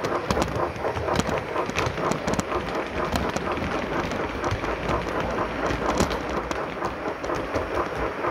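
Model class 44 steam locomotive 044 404-2 running light on a model railway: a steady crackling rolling noise from its wheels on the rails, scattered with sharp clicks as it runs over rail joints and points. The loco's sound is in a coasting phase, with only subdued steam sound.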